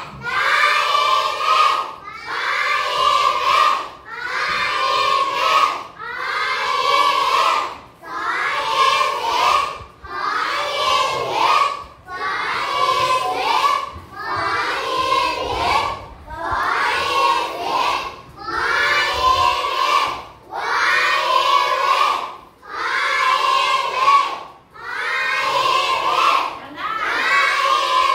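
A class of young children chanting in unison, one phrase about every two seconds in a steady rhythm, as in a choral drill spelling out and reading Thai syllables aloud.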